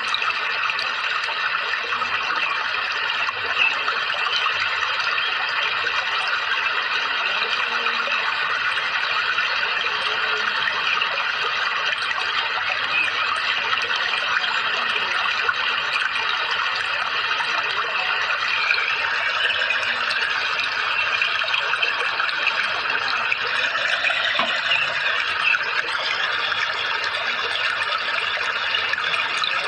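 Running water pouring and trickling in a steady, continuous stream.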